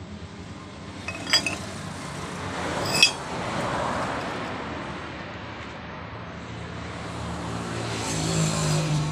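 Two short metallic clinks with a brief ring, about a second and a half apart, as steel pipe pieces knock against a steel angle iron and against each other while being laid in it end to end. A steady low hum and noise run under them throughout.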